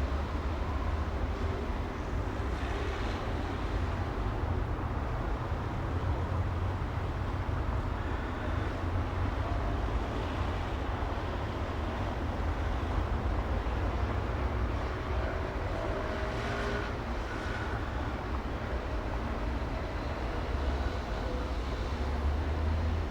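City street traffic ambience: a steady low rumble of vehicles under a constant wash of road noise, with faint brief tones about two-thirds of the way through.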